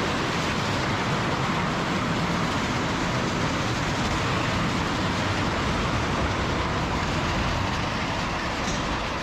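Steady vehicle running noise, engine and road rumble with no distinct knocks or clatter.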